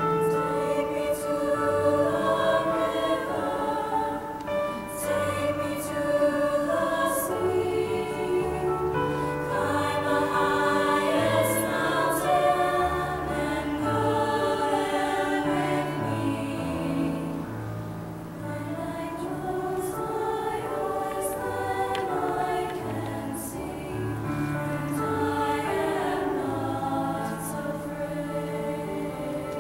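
Female choir singing in harmony, holding long chords that shift from one to the next.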